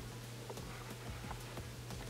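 Faint, scattered light ticks from hands handling a sheepskin boot, over a steady low hum.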